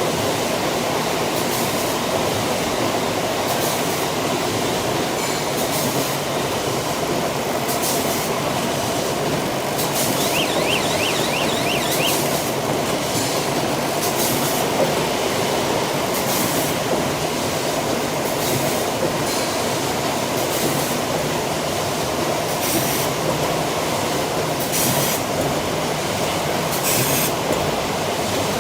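Bag cutting and sewing machine line running: a steady mechanical clatter with a short sharp stroke repeating every one to two seconds.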